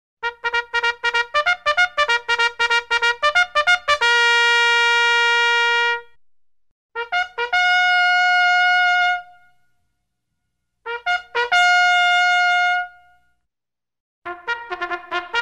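Solo trumpet playing short phrases. A quick run of detached notes leads into a long held note, then two more phrases each open with a few quick notes and end on a held note, with brief pauses between. A new quick run starts near the end.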